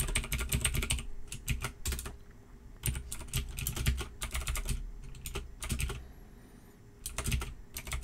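Typing on a computer keyboard: quick runs of keystrokes with short pauses between them, the longest pause a little before the end.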